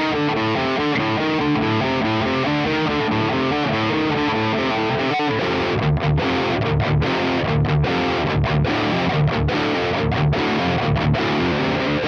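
Parker Fly Deluxe electric guitar played through a Diezel VH4 amp and a 4x12 cabinet with Celestion Vintage 30 speakers, with a distorted high-gain tone. It plays a fast run of single notes, then about halfway switches to a chugging low riff with short, regular stops.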